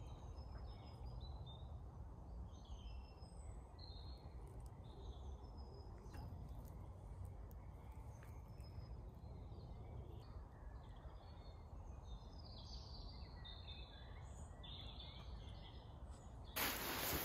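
Woodland birdsong: many short chirps and trills from several birds, over a low steady background rumble. A louder noise breaks in near the end.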